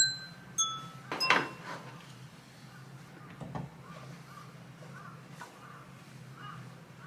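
Two short bright pings, then a knock and scrape as a book with a portable speaker on it is lifted off a wooden stool, and a smaller knock a couple of seconds later.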